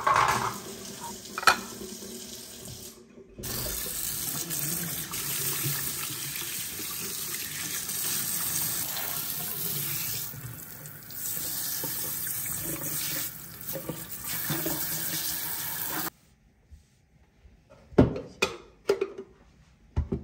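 Kitchen tap running steadily into the sink as a plastic coffee-machine water tank is rinsed, with a couple of knocks of the tank early on. The water stops suddenly about 16 seconds in, followed by a few sharp plastic clicks and knocks as the tank is fitted back onto a capsule coffee machine.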